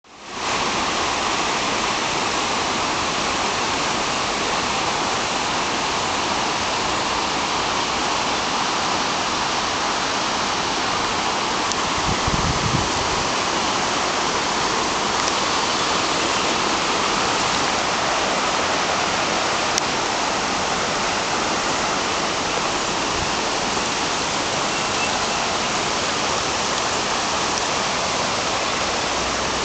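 Flash-flood water rushing steadily down a normally dry creek bed, pouring over rock ledges and stones.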